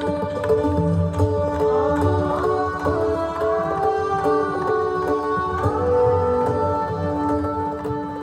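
Background music: a gliding melody over steady held drone tones, with regular drum strokes that are most prominent at the start.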